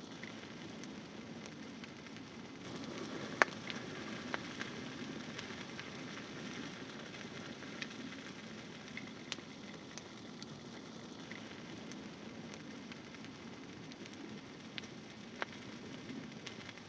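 Small campfire crackling steadily, with occasional sharp pops; the loudest pop comes about three seconds in.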